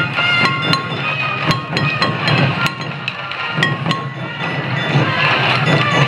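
Sansa odori festival music: drums beaten at a quick, even pace with sharp clacks, under short high melody notes.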